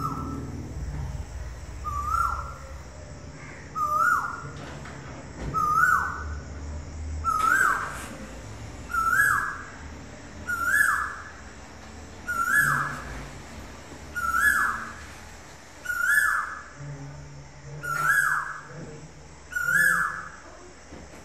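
A cuckoo calling: a clear whistled two-step note, a short lower start stepping up to a higher held tone, repeated steadily about every two seconds, a dozen times over. A low rumble runs underneath.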